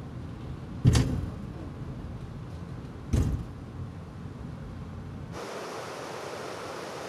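Low rumble of a descending funicular cable car with two sharp knocks, about a second in and a few seconds later. Near the end it cuts to the steady rush of river rapids.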